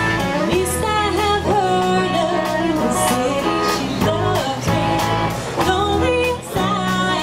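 Live rock band playing: a woman sings the melody over electric bass, electric guitar and a drum kit, with a steady beat of drum and cymbal hits.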